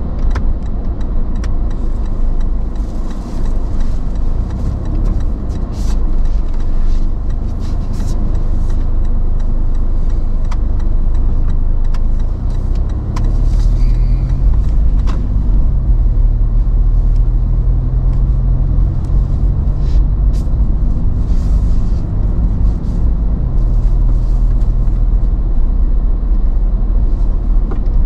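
Toyota Land Cruiser Prado driving slowly, with a steady engine and tyre rumble. About halfway through the engine note rises and holds for several seconds, then drops back. Light knocks and rattles come and go on top.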